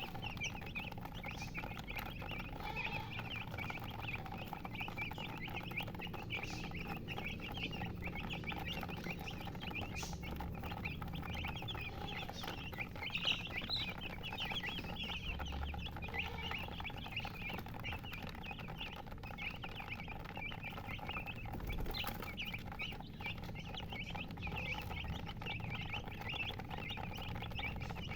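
Many chicks peeping at once, a steady chorus of short, high chirps overlapping one another.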